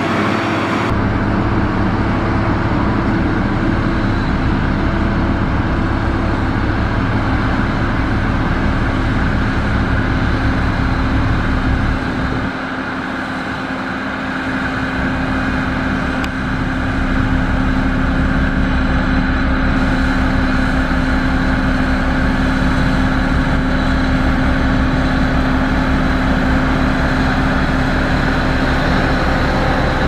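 Heavy diesel engines of road-building machines, a motor grader and a Sakai road roller, running steadily at close range with a deep rumble. The engine note shifts a couple of times, and the low rumble dips briefly just before the middle.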